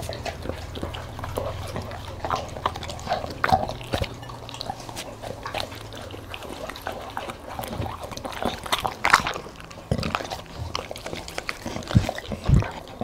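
A dog eating close to the microphone: irregular wet chewing, smacking and crunching, with a few louder crunches near the end.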